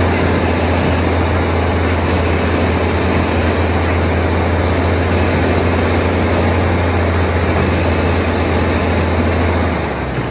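A heavy vehicle engine running loud and steady with a constant low hum, over an even rushing noise. It eases off just before the end.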